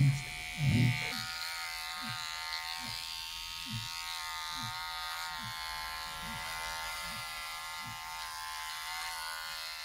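Cordless electric pet clipper buzzing steadily as it shaves a dog's fur around a wound. Two short, louder low sounds come in the first second.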